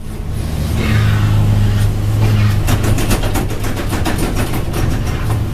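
Fishing boat's engine and deck machinery running with a steady low drone, with a fast run of rattling clicks about halfway through.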